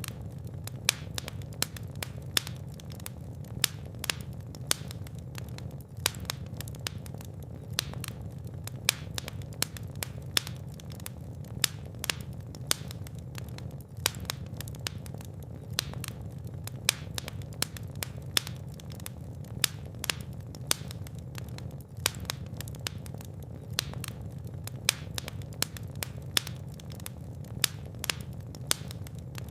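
Fire crackling in a fireplace: many sharp pops and snaps, several a second, over a steady low rumble of the flames.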